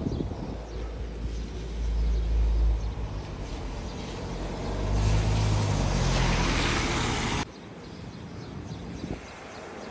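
A car driving past on the street: engine hum and tyre hiss build up, then cut off abruptly about seven seconds in.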